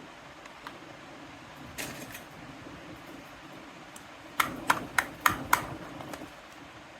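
Small plastic toy kitchen pieces being handled: a few light clicks, then five sharp taps in quick succession, about four a second, over a faint steady hum.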